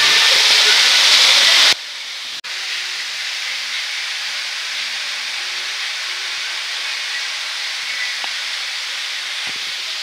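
Waterfall: falling water with a steady, hissing rush. It is loud at first, then drops suddenly to a softer, even rush not quite two seconds in.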